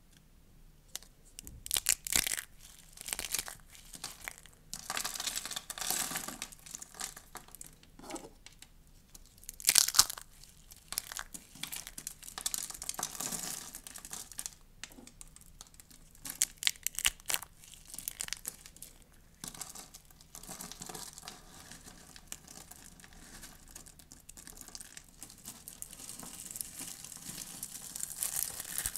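Dry soap crunching and crackling as it is broken and crushed in the hands. Lilac soap pieces crumble into flakes with sharp snaps about 2 and 10 seconds in. Near the end, a heap of green soap curls is squeezed with a denser, steadier crunching.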